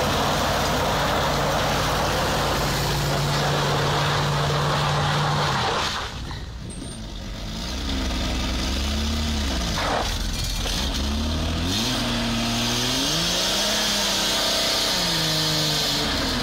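A compact SUV's engine is held at high, steady revs in first gear while it pulls against a tow strap, its tyres spinning on gravel; the noise stops abruptly about six seconds in. From about eight seconds the engine is revved up and down several times.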